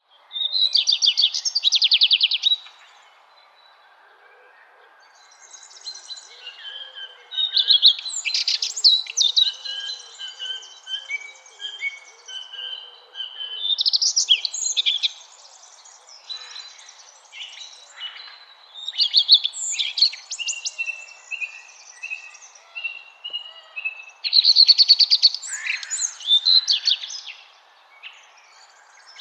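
Several songbirds singing and calling: bursts of rapid high trills and chirps, with short gaps between phrases, over a faint steady background hiss.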